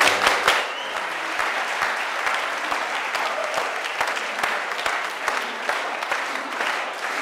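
A large audience applauding, a dense steady patter of many hands clapping.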